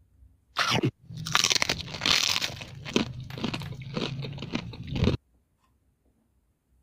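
Crunchy eating sound effect: a short loud crunch, then about four seconds of rapid crunching and chewing that cuts off suddenly. It is dubbed in as a doll pretends to eat play-dough food, which makes no such sound itself.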